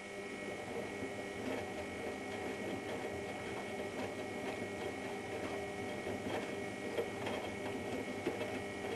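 Privileg Ergonomic 1600 S washing machine running: a steady motor whine with irregular light clicks and rattles.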